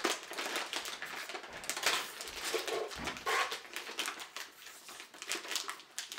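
Crinkly plastic snack bag being pulled and twisted as it is torn open: dense, irregular crackling, with a brief pitched sound about three seconds in.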